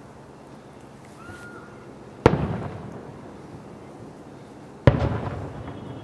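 Aerial fireworks shells bursting: two loud booms about two and a half seconds apart, each trailing off in a rumbling echo.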